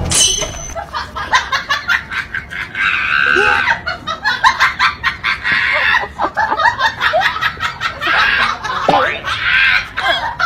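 A person laughing hard in quick repeated bursts of breathy, rising and falling laughter.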